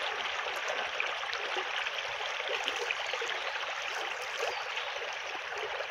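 Small shallow burn flowing steadily over stones, an even rush of running water.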